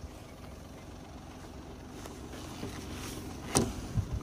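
Daihatsu Hijet kei truck running low and steady, with two sharp knocks near the end.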